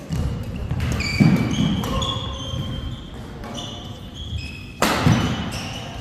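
Badminton doubles rally on an indoor court: sharp racket hits on the shuttlecock, short squeaks of court shoes and thuds of footsteps. The heaviest thuds come about a second in and again near the end.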